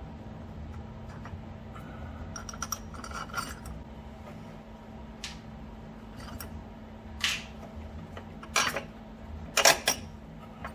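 Metal parts of a homemade bolt-and-washer bushing puller clinking as they are handled, a scatter of sharp clinks with the loudest near the end, over a steady low hum.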